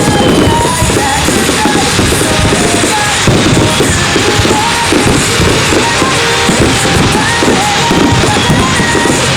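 Loud pop-rock music with a driving drum beat and a melody line.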